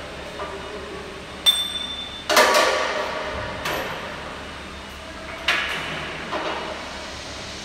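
A series of sharp metallic clanks, some left ringing, the loudest a little over two seconds in: steel hardware being handled and set against the pulling tower of a Celette Rhone XL frame-straightening bench.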